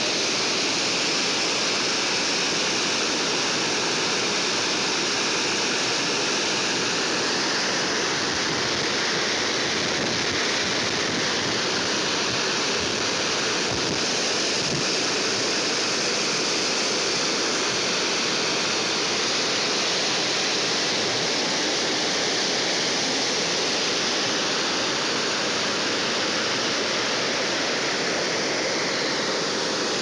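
River water pouring over a low weir into churning whitewater: a steady rushing noise.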